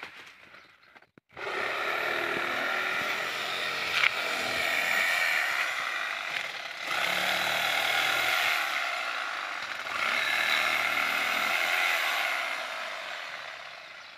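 Chainsaw cutting into the dry wood at the base of a date palm. It starts just over a second in and runs at high revs in three long stretches, easing off briefly between them, and dies away near the end.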